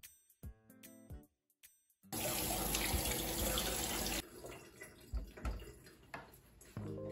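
Kitchen tap running into a stainless-steel sink for about two seconds, then shut off. A few soft knocks follow as lemons are set into a ceramic mug.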